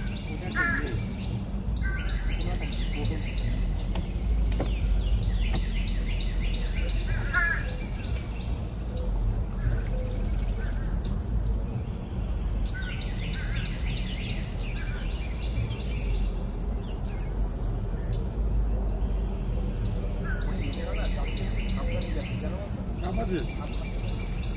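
Insects calling in forest undergrowth: a steady high-pitched whine, with trilling bouts that come every few seconds. Scattered short bird chirps and a low rumble sit underneath.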